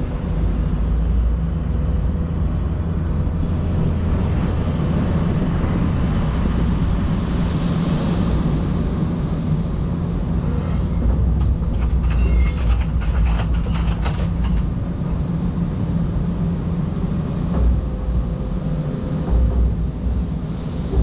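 Excavator diesel engine running steadily, with a rushing hiss about eight seconds in and a few light rattles a little later.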